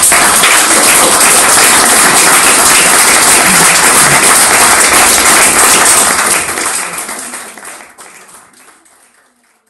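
Audience applauding at the end of a talk, steady and loud for about six seconds, then fading away.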